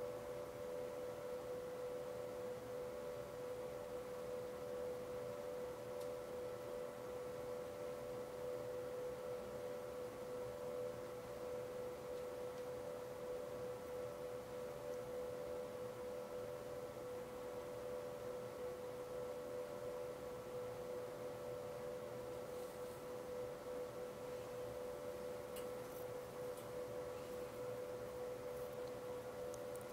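Steady machine hum made of a few held tones, unchanging throughout, with a few faint ticks near the end.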